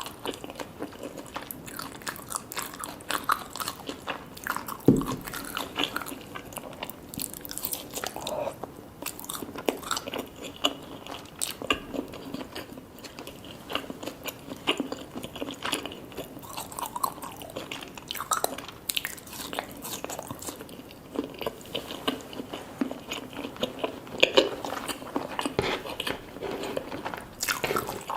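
A person biting and chewing food close to the microphone, with frequent irregular crunches and clicks. One heavier low thump comes about five seconds in.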